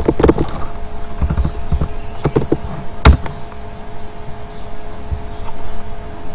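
Scattered computer keyboard keystrokes, with one sharp, louder keystroke about three seconds in, over a faint steady hum.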